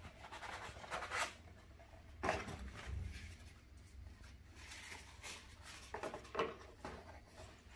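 Cardboard and paper packaging rustling and scraping in short bursts as a small carton is opened and its cardboard insert and paper wrapping are pulled out.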